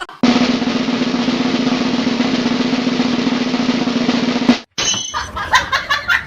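A dense, rapid rolling rattle, like a drum roll, for about four and a half seconds that cuts off suddenly, followed by a run of sharp clicks and taps.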